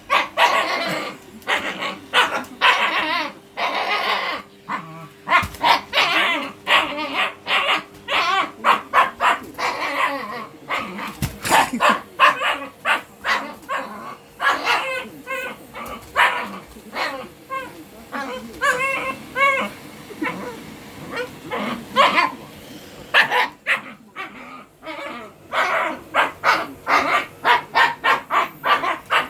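A Shiba Inu barking over and over in quick runs, with higher yips mixed in.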